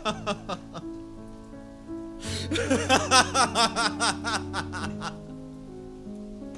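A man's voice laughing in a rapid, pulsing cackle about two seconds in, lasting a couple of seconds, with the tail of a similar burst at the start. Held low notes of background music sound throughout.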